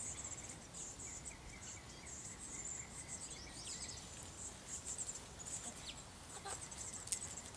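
Outdoor ambience of insects trilling in a high, rapidly pulsing chorus, with a few short bird chirps about three seconds in.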